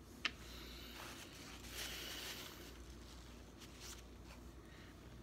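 Handling noises: one sharp click just after the start, a brief soft rustle around two seconds in, and a few faint ticks near the end.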